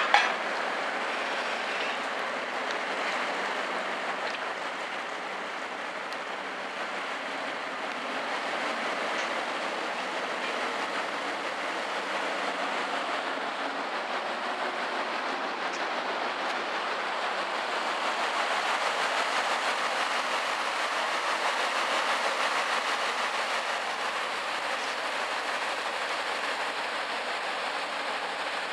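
A pusher tug's diesel engine runs steadily under way as the boat moves past, with the rushing churn of its propeller wash. The sound swells a little past the middle. A brief sharp knock comes right at the start.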